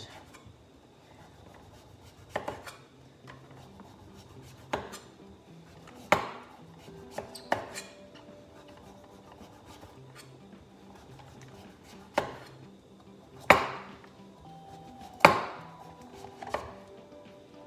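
Kitchen knife paring the skin off a squash, its blade knocking on a wooden cutting board in sharp, irregular taps every second or two. The two loudest knocks come a little past two-thirds of the way through.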